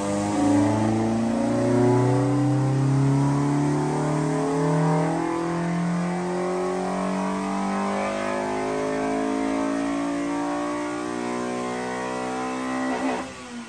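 Honda Civic VTi's four-cylinder VTEC engine, breathing through a generic header and a single muffler, making a full-throttle dyno pull: the pitch climbs steadily with the revs, then the throttle is lifted about thirteen seconds in and the revs fall away.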